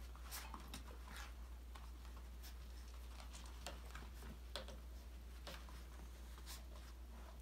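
Five-week-old puppies moving about a playpen: faint, irregular light taps and clicks from their paws and the toys, over a low steady hum.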